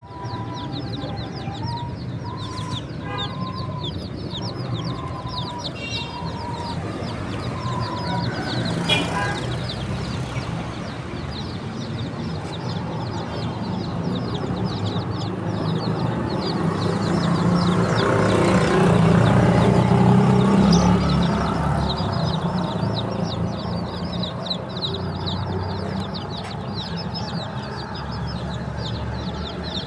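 A group of baby chicks peeping nonstop, many high, quick down-sliding chirps overlapping. A lower repeated call sounds in the first several seconds, and a low rumbling noise swells and fades about two-thirds of the way through.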